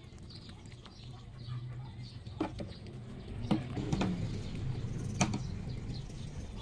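Rabbits chewing pieces of tomato, with a few sharp clicks, and small birds chirping faintly in the background.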